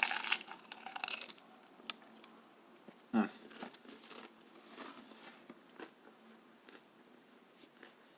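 A snack being bitten and chewed, with crackly crunching loudest in the first second or so, a short, sharp sound falling in pitch about three seconds in, and scattered faint crunches after.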